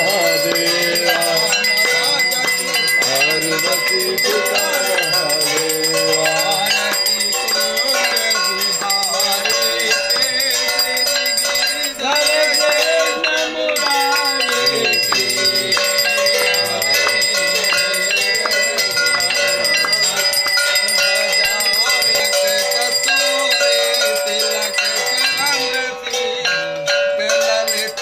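Hand bells ringing continuously through an aarti, with a group of voices chanting the aarti hymn over them.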